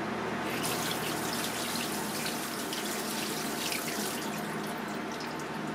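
Kitchen tap with a spray head running water over a whole cuttlefish on a cutting board in a stainless-steel sink. The water starts about half a second in and is shut off about four seconds in, over a steady low hum.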